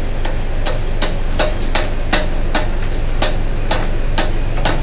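Steady, evenly spaced hammer blows on metal, about two and a half a second, some leaving a brief high ring, from a part of a manual gearbox being tapped during its overhaul.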